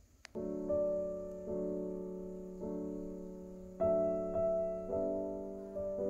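Background music: slow, gentle piano chords, each struck and left to ring away. It starts after a brief gap with a click, about a third of a second in.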